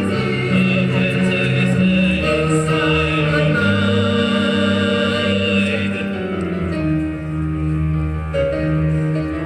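Live operatic singing with vibrato over orchestral accompaniment, in long held notes.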